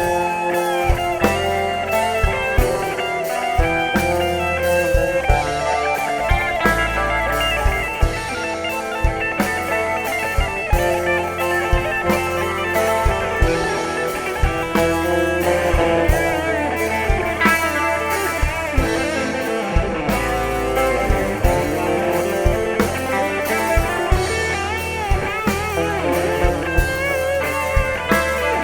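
A live rock band plays an instrumental break through a stage PA, with a guitar playing bending lead lines over a steady drum beat and bass.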